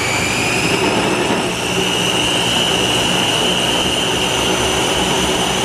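Ninja countertop chopper running at full speed, pureeing a liquid tomato-and-chipotle sauce. It makes a loud, steady motor whine that rises slightly in pitch during the first couple of seconds and then holds.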